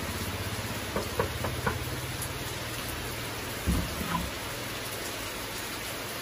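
Steady rain, with four quick knuckle knocks on a door about a second in, followed by two dull thuds a couple of seconds later.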